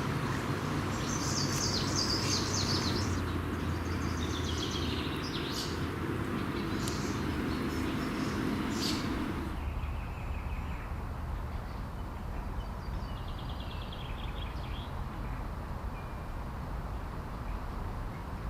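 Songbirds singing in short calls and trills over a steady low outdoor rumble. About halfway through, the rumble and haze drop sharply, leaving fainter birdsong.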